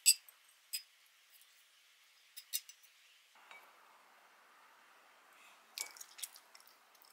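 Metal tongs clinking against a frying pan and ceramic plate while spaghetti is served: one sharp clink at the start, then a few lighter clinks. Near the end, a cluster of light clicks from chopsticks on the ceramic plate.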